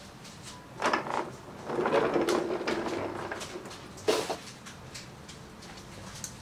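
Parts being handled on a workbench: a couple of sharp knocks, a scraping slide lasting about a second and a half, then another knock.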